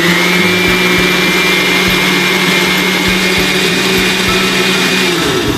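Countertop blender motor running steadily at speed, puréeing roasted vegetables and hot water into soup. Near the end it switches off and winds down.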